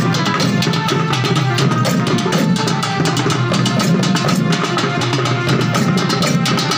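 Several hand-held barrel drums beaten together by dancers in a fast, steady, dense rhythm.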